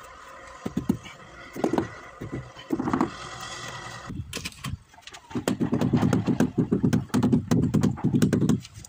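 Rubber mallet tapping a ceramic tile down into thinset adhesive: a quick run of dull knocks, several a second, from about five seconds in until just before the end. Before that, a steady mechanical hum with a few light clicks, which stops abruptly about four seconds in.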